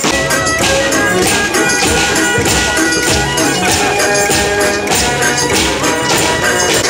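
Informal group of amateur musicians playing live: a hand drum and a snare drum keep a steady beat, a tambourine jingles with it, and a sustained melody runs over the top.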